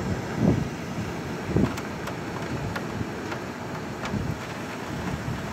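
Severe-storm wind, a steady rush with low gusts buffeting the microphone about half a second in, after a second and a half, and again around four seconds.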